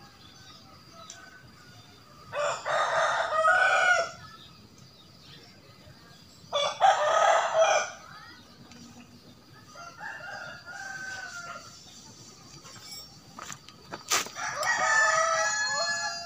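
A rooster crowing four times, a few seconds apart, the third crow fainter than the others. A single sharp click comes just before the last crow.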